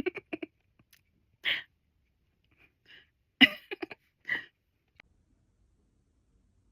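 A woman's short breathy vocal sounds, a few excited laughs and exhales in quick bursts over the first few seconds, then one faint click.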